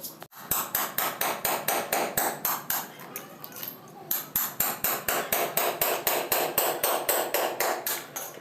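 A hammer striking fast and evenly, about five blows a second, easing off for about a second midway before picking up again.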